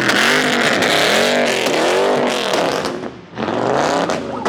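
Car engine being revved up and down repeatedly, its pitch rising and falling in quick swells. It dips briefly about three seconds in, then revs again.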